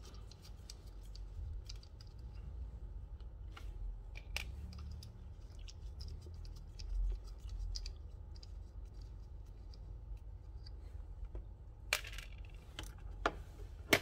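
Small scattered clicks and scratching of small tools and parts being handled during disassembly of a Bluetooth speaker, with a few sharper clicks, two of them near the end, over a low steady hum.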